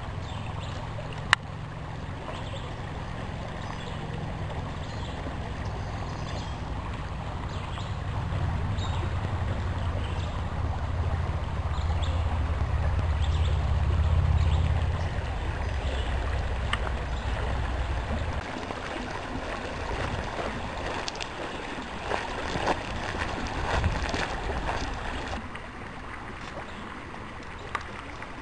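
Shallow creek running over rocks, an even rushing hiss. A heavy low rumble on the microphone runs under it and stops about two-thirds of the way through, with scattered small clicks and one sharp knock about a second in.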